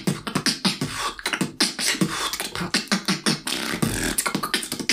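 A human beatboxer performing a fast beat with his mouth, a rapid string of sharp clicks, hits and puffs several times a second, built around rimshot snares.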